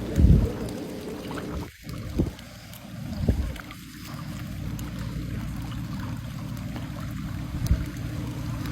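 Steady low rumble of wind on the phone microphone over floodwater, with a few louder low thumps.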